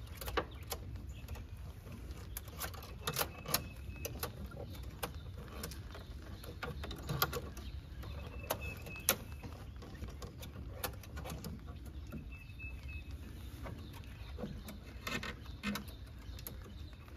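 Scattered light clicks and taps of a plastic honeycomb mesh grille insert being handled and pushed into a pickup's lower bumper opening, over a steady low hiss of rain.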